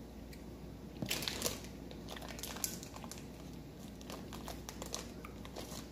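Plastic Skittles pouch crinkling as it is handled: a run of scattered crackles starting about a second in.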